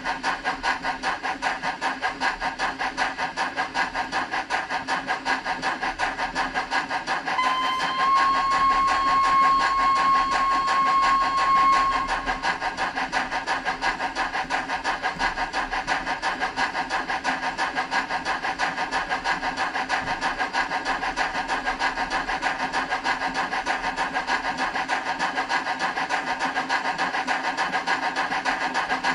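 Model steam locomotive sound through a small onboard speaker: rapid, even chuffing, several beats a second. About seven seconds in, a steady whistle blows for roughly four seconds.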